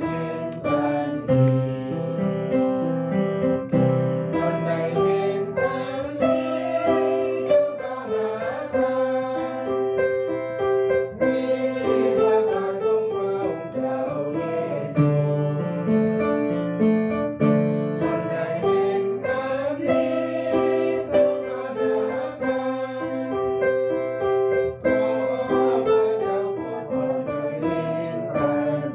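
A slow hymn played on an electronic keyboard in a piano voice, with a congregation singing along in held, stepwise notes.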